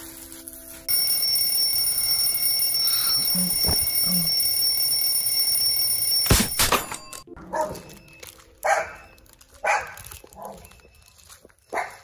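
Alarm clock ringing with a loud, steady high tone, cut off suddenly by a gunshot about six seconds in. Then a dog barks about five times, in separate short barks.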